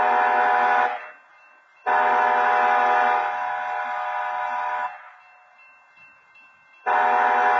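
Train air horn sounding a chord in separate blasts: a short one, then a long one of about three seconds, then another starting near the end.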